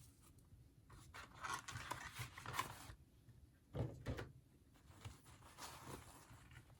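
Faint handling noises of a doll's packaging being worked open: rustling and scraping, then a light knock a little under four seconds in, and softer rubbing after it.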